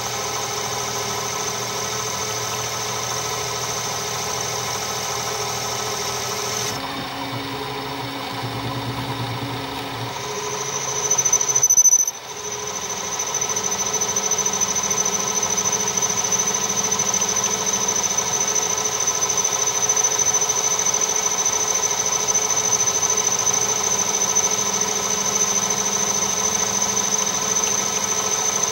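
Metal lathe taking a facing cut across the inner side of a 1/8-scale brake drum, the cutting tool giving a steady high-pitched squeal over the machine's running hum. About seven seconds in the sound changes and the squeal drops away. It swells to a loud peak, cuts off abruptly around twelve seconds in, and then the steady squeal returns for the rest of the cut.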